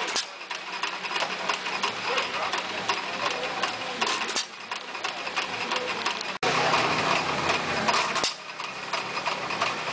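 Antique single-cylinder hit-and-miss engine running, belt-driving a wooden-tub ice cream churn. It makes a steady rapid clicking, with a heavier firing pop only every couple of revolutions as it coasts between power strokes.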